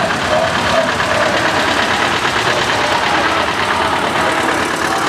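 Vintage tractor engine running at low revs close by, a steady rapid chug as it pulls a loaded wagon.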